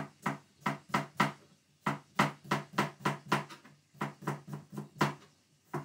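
Knife slicing a cucumber on a chopping board: a regular run of chops, about three a second, broken by a couple of short pauses.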